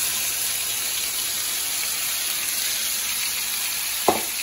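Marinated boneless chicken pieces sizzling steadily in hot oil in a frying pan as they are scraped in from the bowl, with a sharp knock near the end.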